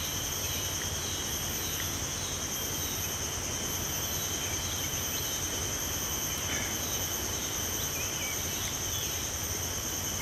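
Steady chorus of insects buzzing in several continuous high tones over a low background hiss, with a few faint bird chirps.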